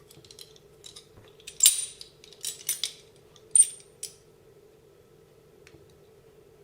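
Sharp metallic clinks of grips working a bent steel suspension bolt as it is straightened, a cluster of them between about one and a half and four seconds in, one with a brief high ring.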